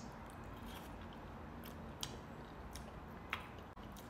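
Close-miked chewing of food, with a few soft, moist mouth clicks spaced out over the few seconds.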